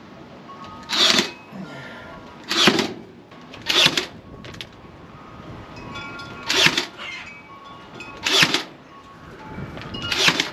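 Cordless power stapler firing 3/4-inch staples through hardware cloth into a wooden post, six sharp shots at uneven intervals, each with a short ringing tail.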